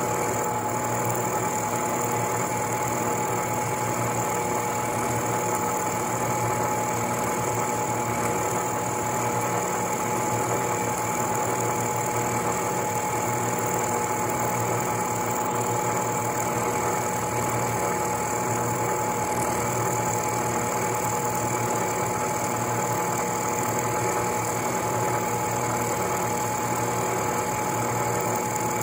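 Vertical milling machine running steadily, its end mill cutting a slot along a metal shaft, with a constant whine at an unchanging pitch.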